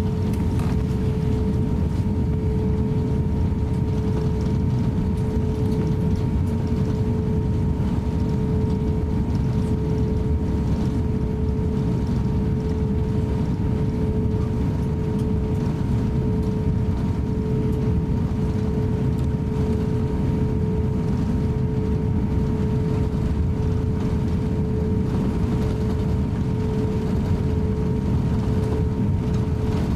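Cabin noise inside an Airbus A350-900 taxiing: a steady low rumble of the engines at idle power and the air system, with a constant mid-pitched hum running through it.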